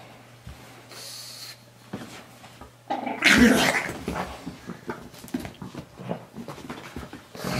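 Pug growling in play while fighting a soft toy, with a loud burst about three seconds in.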